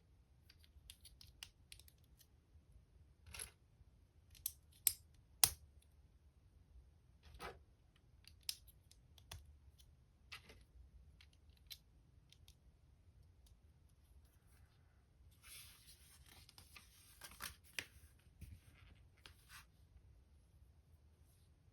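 LEGO bricks being handled and pressed together: a scatter of small, sharp plastic clicks and snaps, the loudest pair about five seconds in, with a few seconds of rustling near the middle of the second half.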